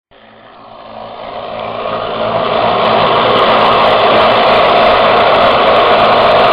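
Electric power sander or rotary tool running and grinding against walrus ivory: a steady motor hum under a dense abrasive hiss. It swells over the first three seconds, then holds steady.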